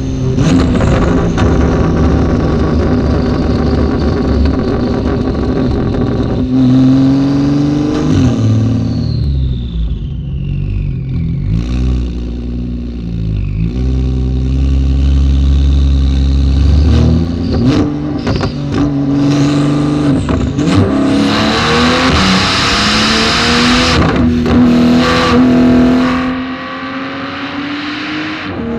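Porsche GT2 RS twin-turbo flat-six with a titanium straight-pipe exhaust, run hard through the gears. The pitch climbs and drops again and again, with sharp cracks at the shifts.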